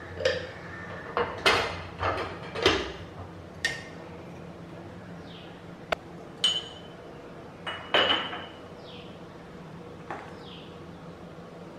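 Ceramic cups and bowls clinking and knocking against a metal wire dish drying rack as they are lifted out and handled, about ten separate knocks. Twice, about six and a half and eight seconds in, a knock leaves a short metallic ring.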